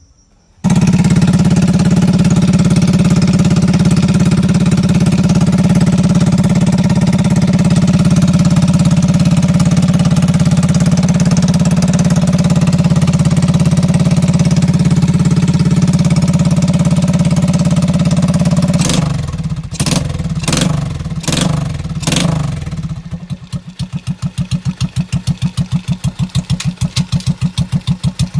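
A 110cc motorized bike engine running fast and steady, then faltering with a few sharp breaks about three-quarters of the way through, and settling into a slower, evenly pulsing idle.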